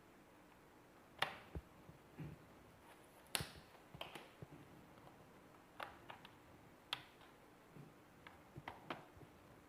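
Faint, irregular plastic clicks and taps, about a dozen spread out, from a laptop's plastic bottom case being pried loose and its clips worked apart.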